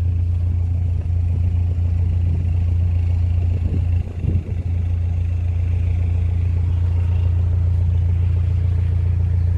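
Narrowboat diesel engine running steadily under way, a loud, deep, even hum.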